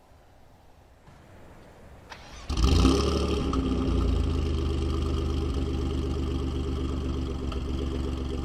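Performance car engine cold-starting about two and a half seconds in, with a short rev flare on the catch, then settling into a steady, loud idle.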